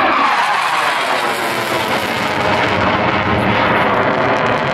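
Eurofighter Typhoon's twin EJ200 turbofan engines passing overhead: a whine falls in pitch in the first half-second, then a loud, steady rumbling jet noise.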